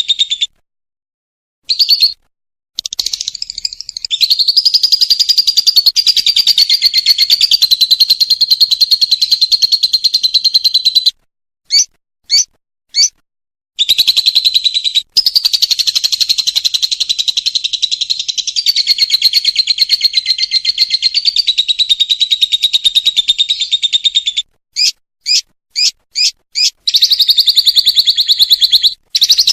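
Lovebird singing its long, very fast chattering trill ('ngekek'), in runs of several seconds each, broken by short gaps and a few quick separate chirps.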